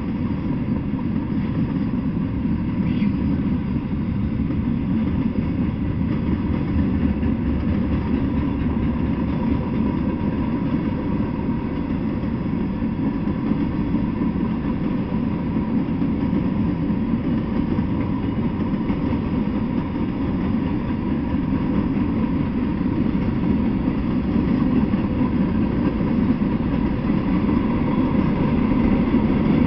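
Freight train rolling past, its gondola cars' wheels making a steady rumble on the rails that grows a little louder near the end.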